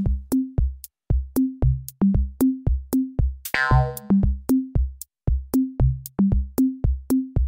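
Background music with a steady electronic drum beat, low strokes about three a second, and a short sweep about halfway through.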